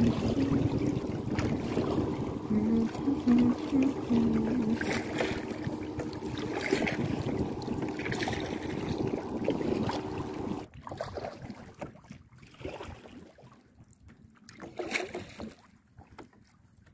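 Wind buffeting the microphone and water moving around a kayak, with a steady low hum under it. About ten seconds in the sound drops abruptly to much quieter water, with a few small splashes.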